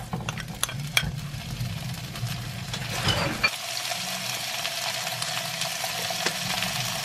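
Sour kimchi sizzling in a nonstick frying pan over low heat. There are a few sharp taps of a wooden spoon in the first second as the kimchi is scraped in from a bowl, then a steady sizzle.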